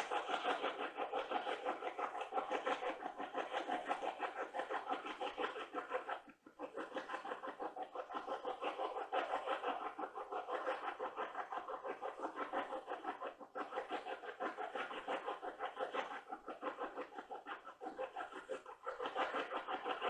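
Handheld spirit box radio sweeping through stations, giving a rapid, choppy stream of radio static and clipped sound fragments. It drops out briefly twice, about six seconds in and again about thirteen seconds in.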